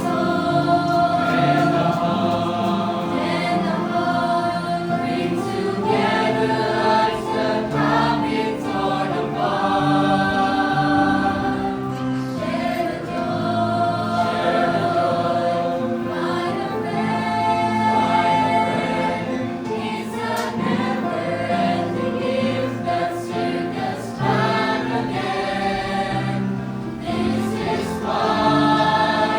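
Choir singing: many voices hold overlapping notes that shift every second or two.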